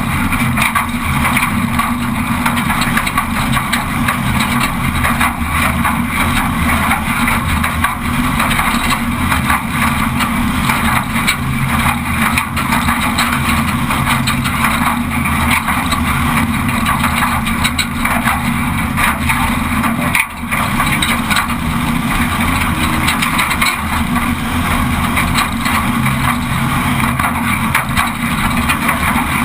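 Off-road race vehicle's engine running hard, heard from inside the car, with constant rattles and knocks as it crashes over rough ground. The sound dips briefly about twenty seconds in.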